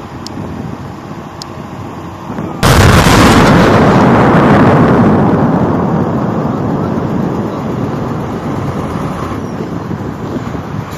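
Rock blast: a sudden loud explosion about two and a half seconds in, followed by several seconds of rumbling that slowly dies away.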